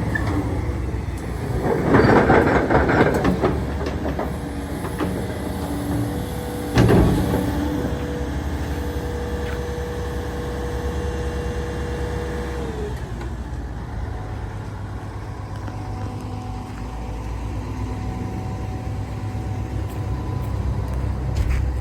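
Komatsu PC490LC-11 excavator running, with its diesel engine droning steadily. Around two seconds in there is a rattling burst, and a sharp knock comes about seven seconds in. A steady whine follows and drops in pitch and fades around thirteen seconds.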